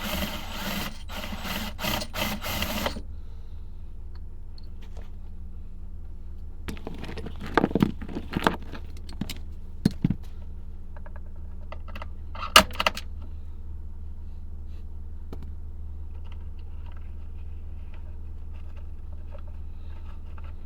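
A small motorised tool runs and stops abruptly about three seconds in. Then metal parts and tools clink and clatter in a few short bursts over a steady low hum.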